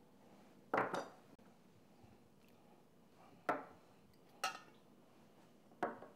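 Kitchen utensils knocking against a bowl and dishes: four separate clatters with a short ring, spaced a second or more apart.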